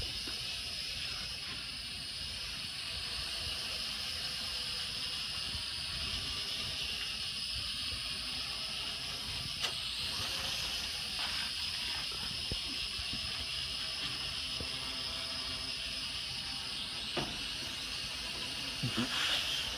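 Small Traxxas LaTrax Alias quadcopter in flight, its four motors and propellers giving a steady high whine, with a few faint ticks.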